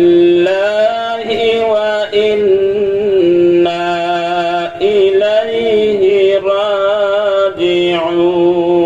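A man's voice chanting in a sing-song melody, holding long notes and gliding between pitches, in the melodic chanting style of a Bangla waz sermon.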